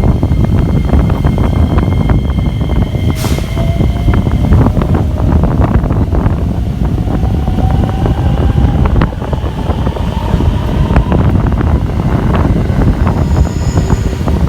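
JR West electric train running through the station: a loud, steady rumble with many rail clicks and a thin motor whine that rises slowly in pitch.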